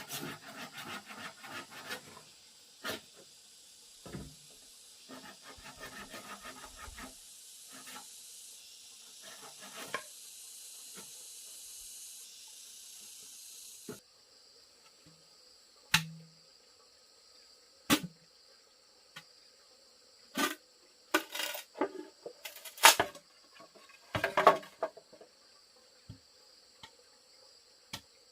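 Hand work on wood: rough scraping and rubbing at first, then, after a sudden change about halfway through, scattered sharp knocks and clicks.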